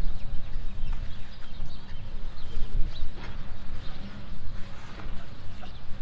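A large flock of birds gathering to feed, giving many short, scattered calls, over a constant low rumble.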